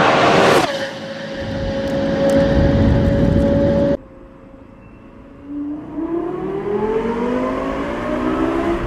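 Lexus LFA's V10 passes at high revs, its pitch dropping suddenly about half a second in, then holding a steady high note as it goes away. After a cut about four seconds in, the engine is heard from inside the cabin, running quietly, then revving up with a steadily rising pitch from about five and a half seconds.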